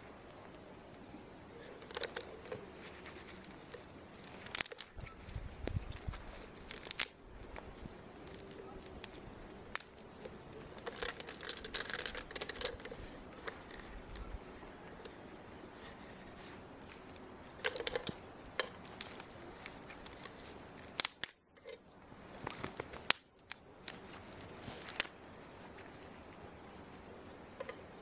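Thin dry spruce twigs snapping as they are broken by hand: scattered sharp snaps, some single and some in quick clusters, with brief crackling as the pieces are handled.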